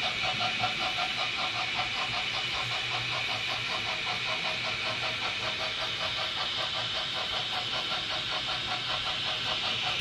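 Simulated steam chuffing from an H0-scale model of a DB Class 18.6 steam locomotive as it runs: a fast, even chuff over a steady hiss.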